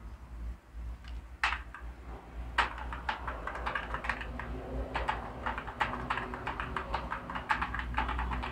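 Typing on a computer keyboard: a few separate key presses, then quick runs of key clicks from about halfway through, over a low steady hum.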